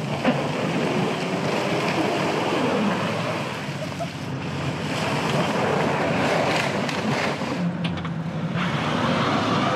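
A 2009 Toyota RAV4, stuck where it broke through ice, spinning its wheels in icy water and slush under engine power: a steady rush of churning water and spray. The sound changes about eight seconds in.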